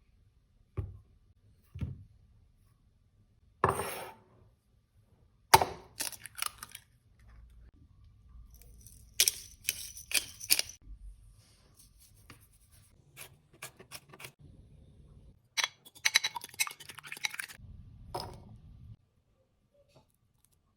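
Kitchen prep sounds: separate knocks and clicks of utensils being handled, with a run of quick taps about sixteen seconds in.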